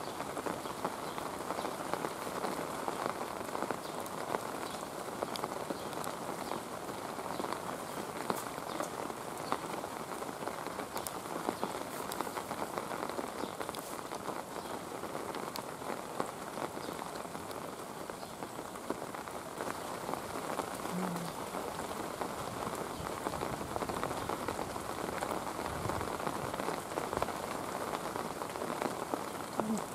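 Steady rain falling, with scattered ticks of single drops.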